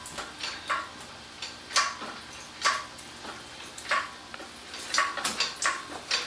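Hydraulic engine hoist being pumped as it lifts an engine, its handle and lifting chains giving sharp metallic clinks with a short ring, about one a second, coming faster together near the end.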